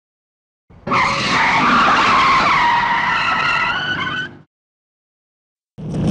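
Logitech M705 mouse's worn standard feet scraping across a mouse pad: a loud skidding scratch of about three and a half seconds, with several wavering squeaky tones over it, that cuts off abruptly. The friction is high because the feet no longer glide.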